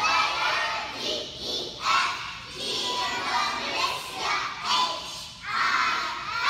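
A group of young children singing together in unison, in short phrases with brief breaks between them, echoing in a large hall.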